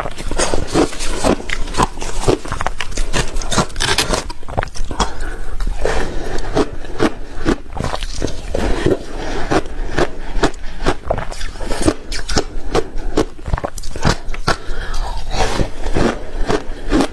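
Ice being bitten and chewed close to the microphone: many rapid, irregular crunches and cracks.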